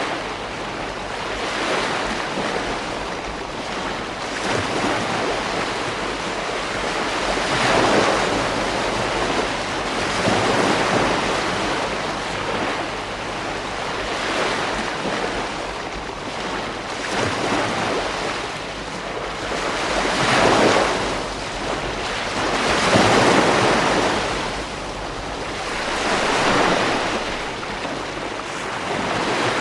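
Ocean waves breaking on a beach: a continuous wash of surf that swells as each wave breaks, every few seconds, with a steady wind-like hiss underneath.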